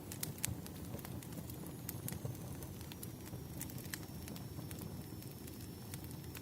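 Wood fire crackling: irregular sharp pops and snaps of burning logs over a steady low rumble.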